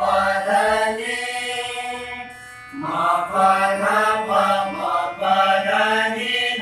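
A group of voices sings sargam syllables of an alankar exercise in unison, with a harmonium accompanying. The notes step along quickly, one is held for about a second, and after a short dip about two and a half seconds in the stepping pattern resumes.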